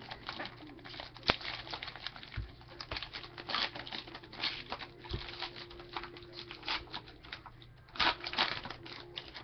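Trading card pack being opened and the cards handled: an irregular run of crinkling, scratching and small clicks, with a sharp click about a second in and a busier flurry near the end.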